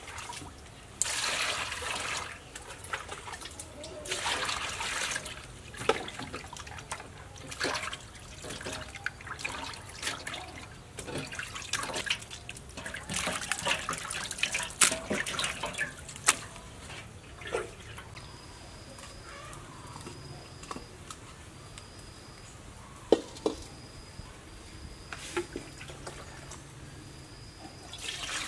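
Water splashing and sloshing in an aluminium basin in irregular bursts as pork offal (liver and other organs) is washed clean by hand. In the later part a faint high call repeats in short dashes about once a second, and near the end water is poured from a bowl into a wok.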